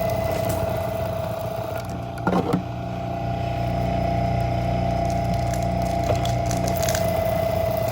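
Wire-stripping machine running with a steady hum as scrap insulated copper wire is fed through its blades, with a short crunching burst a little over two seconds in as the insulation is cut.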